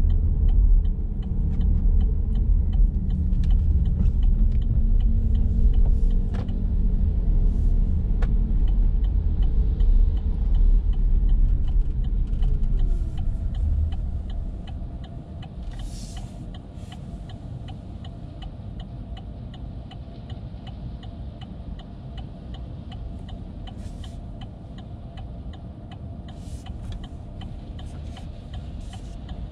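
A car's tyre and road noise rumbles on a wet street, then fades about halfway through as the car slows. The rest is a steady, even ticking, typical of the car's turn-signal indicator, over a quiet cabin hum.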